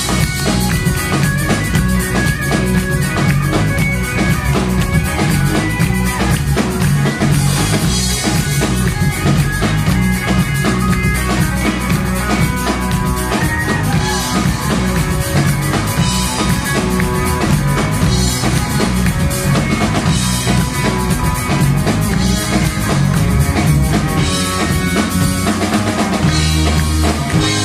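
Tuareg desert-blues band playing live: electric guitar over a steady drum kit beat.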